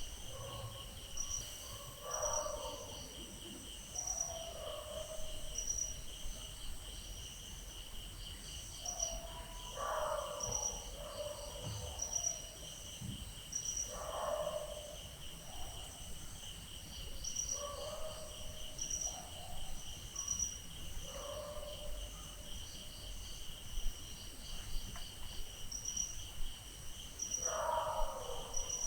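Night ambience of crickets chirping in a steady, rapid pulse, with dogs barking in the distance every few seconds.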